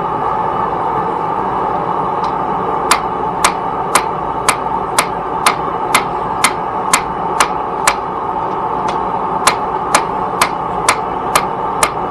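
Hammer blows on metal at a steady two strikes a second, typical of hammering hot steel on an anvil while forging a knife, with a short pause about eight seconds in before the blows resume. A steady rushing noise runs underneath.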